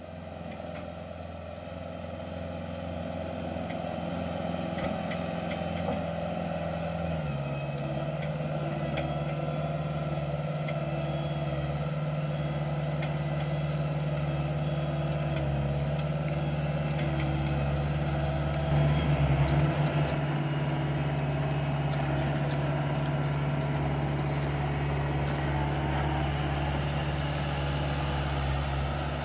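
Skid steer engine running steadily. Its pitch steps up about seven seconds in, and there is a brief louder surge a little past the middle.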